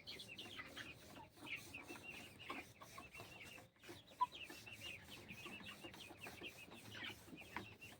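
Faint clucking and peeping of a flock of broiler chickens, many short overlapping calls, with one brief click about four seconds in.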